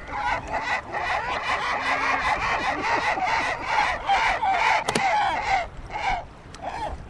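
A flock of gulls calling: many short, overlapping calls in quick succession, thinning out and fading over the last second or two.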